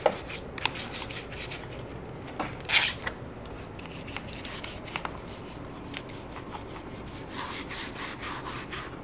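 Nylon brush scrubbing a corroded car battery wet with baking soda solution: repeated short scratchy strokes, a few of them louder, as the acid corrosion is neutralized and scrubbed off.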